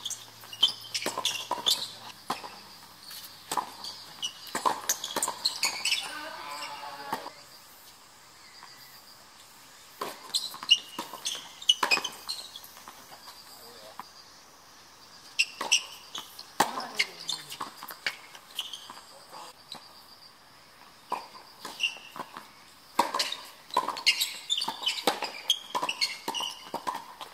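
Tennis balls struck by rackets and bouncing on a hard court during doubles rallies: clusters of quick sharp pops, with short lulls between points.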